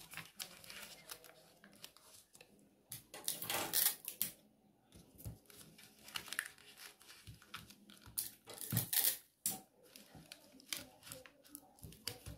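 Paper rustling and crinkling as pattern pieces are handled and folded, with two louder bursts of rustling, one about a third of the way in and one about three quarters through.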